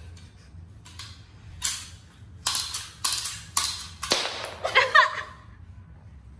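Toy ball-shooting pistol clicking sharply as it fires, among several short hissy bursts, followed by a brief squeaky glide.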